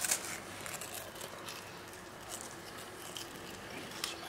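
Crunching of a puffed rice cake being bitten and chewed, a few sharp crunches at the start and another near the end, with faint chewing between.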